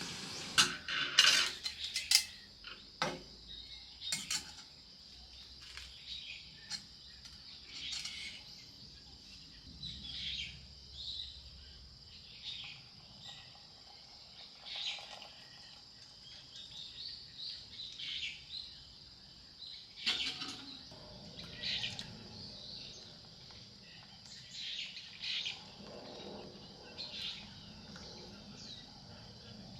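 Birds chirping on and off over a steady high insect hum, with a few sharp clinks in the first couple of seconds.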